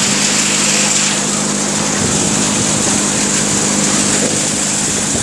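Tractor-driven multi-crop thresher threshing groundnuts, running with a steady, even mechanical drone and hiss.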